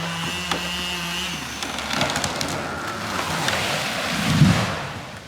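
A chainsaw runs steadily and fades out about a second and a half in. A felled tree's trunk then cracks and splinters and the tree crashes down through the branches, landing with a heavy thud about four and a half seconds in.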